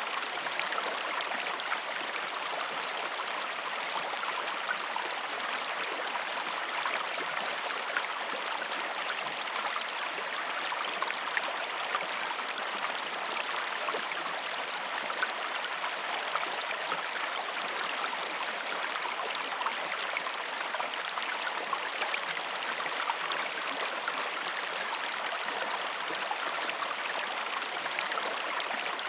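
River water flowing and splashing steadily, a constant rushing hiss with many small bright splashes.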